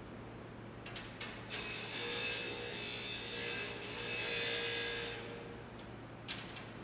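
Small grinding wheel on a band saw blade welder grinding the weld bulge off a steel band saw blade: a steady grinding hiss with a faint motor whine for about three and a half seconds, starting about a second and a half in. A few light clicks come just before and after it.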